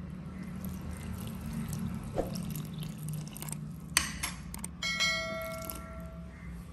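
Water poured from a plastic jug into a bowl of flour, over a steady low hum. About four seconds in comes a click, then a bell-like ding that rings for over a second: an added subscribe-button notification sound effect.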